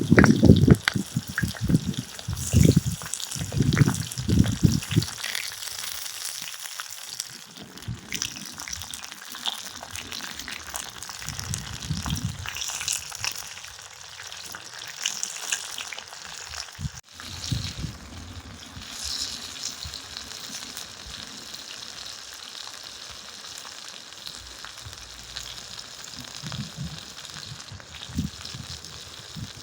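Food frying in a pan over a wood fire: a steady sizzle throughout, with a run of dull knocks in the first few seconds and one sharp click about two-thirds of the way through.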